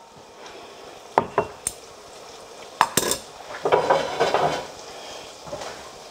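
Butter and minced garlic sizzling in a cast-iron skillet, with a scatter of sharp metal clicks and clinks against the pan as the garlic is stirred with tongs, busiest about two-thirds of the way through.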